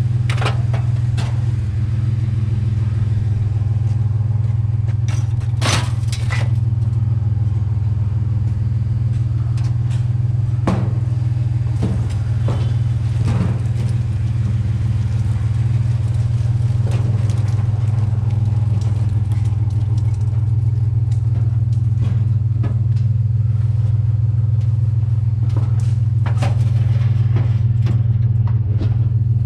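A truck driving along: a steady low engine and road drone, with a few scattered light clicks and rattles.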